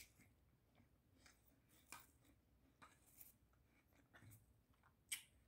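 Near silence with a few faint clicks and smacks from someone eating, the loudest about five seconds in.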